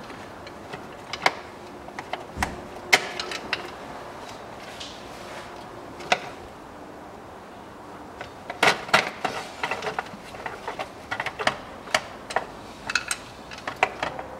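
Scattered clicks and knocks of hands unclipping plastic wiring-harness clips and working the plastic timing-belt cover off the engine, with a dense run of clicks in the second half.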